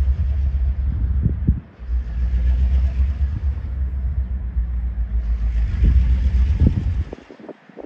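Wind buffeting the microphone: a loud, uneven low rumble that briefly drops out near the two-second mark and then cuts off suddenly about seven seconds in.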